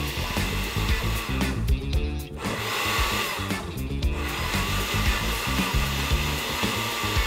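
Electric blender running, churning a banana, cocoa and cold milk shake in its plastic jar. The motor's whine drops out briefly about two seconds in and again about four seconds in. Background music plays under it.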